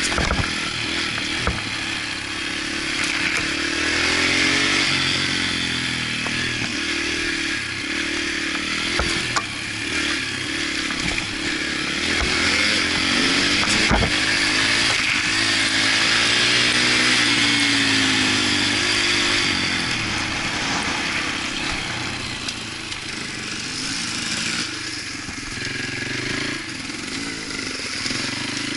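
Yamaha TTR125's small single-cylinder four-stroke engine running under way on a dirt trail, its pitch rising and falling again and again as the throttle opens and closes, over a steady hiss. A sharp knock about halfway through.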